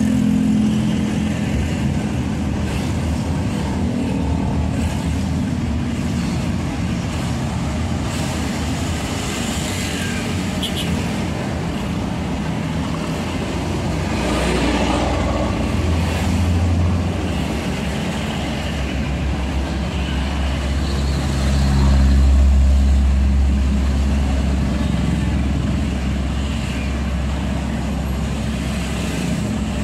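Steady engine and road noise of a moving road vehicle in traffic, with a deeper low rumble swelling about two-thirds of the way through.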